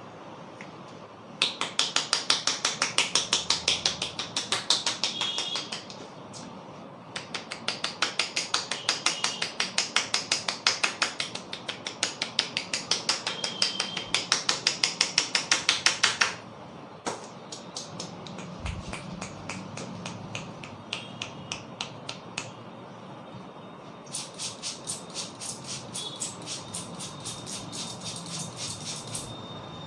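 A barber's hands striking rapidly on a person's head during a head massage: fast, sharp slaps at about five a second, in runs of several seconds with short pauses, softer for a stretch in the middle.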